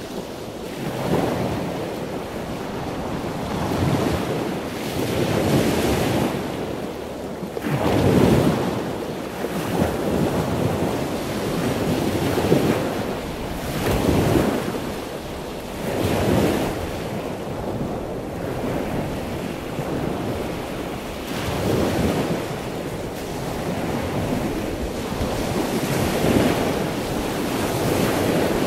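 Sea waves breaking over a steady wash of surf, a new surge swelling every couple of seconds.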